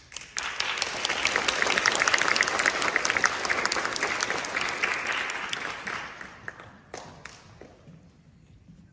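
Audience applauding: dense clapping that starts at once, holds for several seconds, then dies away, with a few last scattered claps about seven seconds in.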